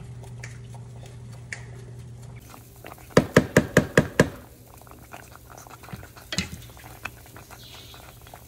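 A spatula stirring a pot of thick bubbling grits, with six quick sharp knocks as it is tapped against the pot about three seconds in and another single knock a few seconds later.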